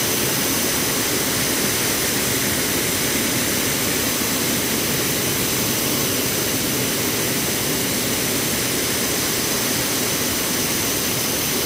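Wide waterfall pouring over a broad ledge onto a rock bed close by: a loud, steady rush of falling water with no change.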